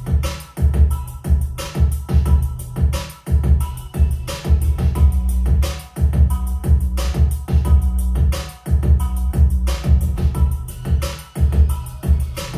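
Recorded music with a heavy, pulsing bass line and a drum beat, played through a JBL EON One column PA speaker with its speaker and mixer dials set at half, heard in the room.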